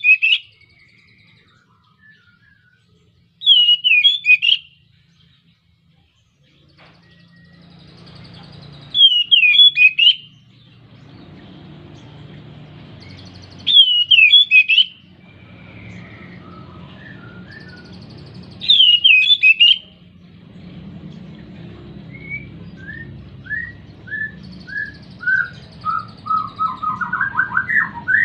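A male Oriental magpie-robin in breeding condition singing loud whistled phrases about a second long, roughly every five seconds. Near the end it breaks into a string of short falling notes that speeds up into a fast trill.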